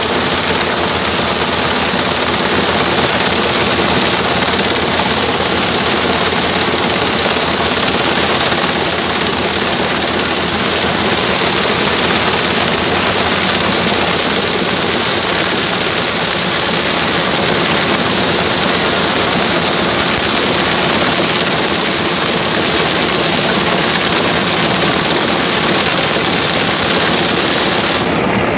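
US Coast Guard Jayhawk rescue helicopter hovering close by, a loud steady rush of rotor and turbine noise with a fast low beating from the blades.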